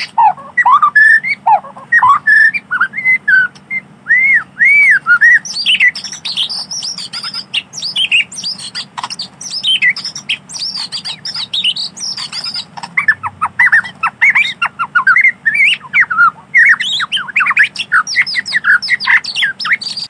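White-rumped shama singing a long, rapid, varied song of rising and falling whistles and quick high chattering trills, with barely a pause between phrases.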